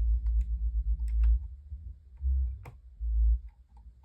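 A small screwdriver driving a screw back into a desk fan's housing: a run of light, irregular clicks and ticks from the driver, with dull low bumps as the fan is handled.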